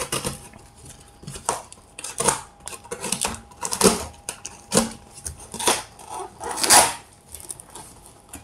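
Utility knife slicing through packing tape and a cardboard box, with the cardboard flaps ripping and scraping as they are pulled open: a series of short, irregular rasps and rips, roughly one a second.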